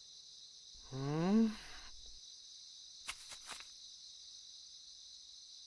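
Steady, high chirring of crickets. About a second in, a man gives one short vocal sound rising in pitch, like a questioning "hm?", and a few soft clicks follow around three seconds in.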